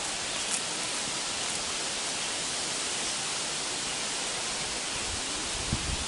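A steady, even hiss of background noise on an outdoor recording, with a few soft low thumps near the end.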